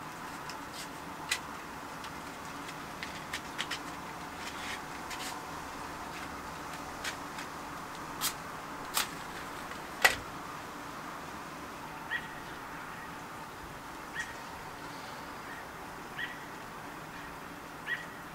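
Steady hiss of falling rain, with a scatter of sharp clicks from a lighter being worked to light a cigar, the loudest about ten seconds in. Short chirps come about every two seconds in the second half.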